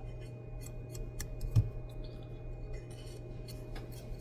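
Small metal repair tools clicking and scraping on a phone's circuit board during charging-port soldering work, with one louder knock about a second and a half in. A steady low hum runs underneath.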